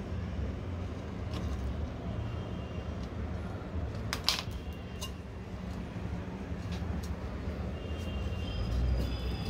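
Steady low background rumble with small clicks and rustles of hands handling rope and a hot-glue gun, one sharper click about four seconds in.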